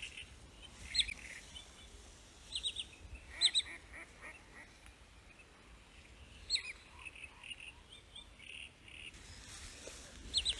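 Wood sandpiper calling: short, sharp, high whistled notes in quick groups of two or three, repeated every few seconds over a faint hiss.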